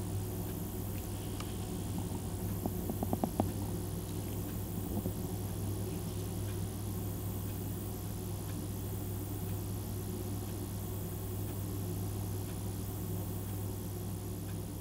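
A steady low hum runs throughout, with a short run of faint ticks about three seconds in.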